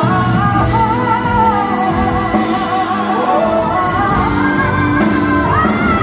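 Music: a singer holds long, wavering notes over instrumental accompaniment.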